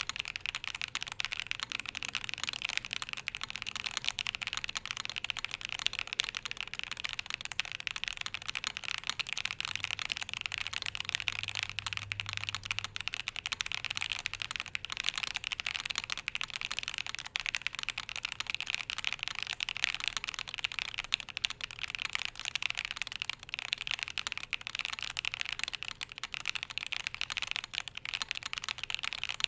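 Continuous fast typing on a Tenet70 custom mechanical keyboard with SOTC switches on a polycarbonate plate, many keystroke clacks a second.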